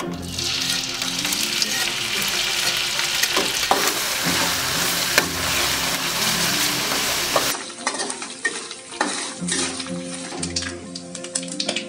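Dried anchovies frying in hot oil in a stainless steel wok: a loud, dense sizzle as the fish go in. About seven and a half seconds in the sizzle drops, and a metal spatula scrapes and clicks against the wok as the fish are stirred.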